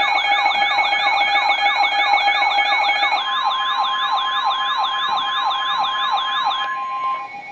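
Weather radio receiver's alert siren: a rapid rising whoop, about three a second, over steady tones. About three seconds in, the steady NOAA warning alarm tone joins it. The alert announces an incoming warning, here a flood warning. The siren stops shortly before the end, with the alarm tone running a moment longer.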